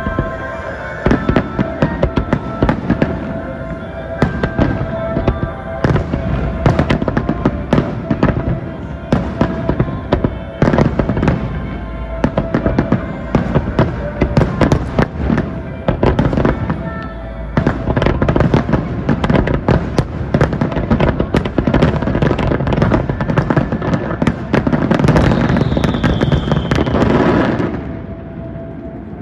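Aerial firework shells bursting in a rapid barrage of bangs and crackles. Near the end it builds to a dense finale with a high whistling tone, then drops off suddenly.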